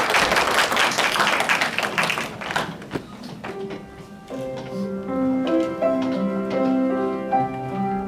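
Clapping that fades out over the first three seconds, then a keyboard starts a slow melody of held notes and chords, the opening of a song.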